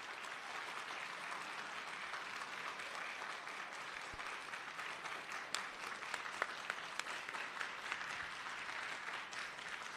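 Audience applauding steadily, with a few sharper single claps standing out from about halfway in.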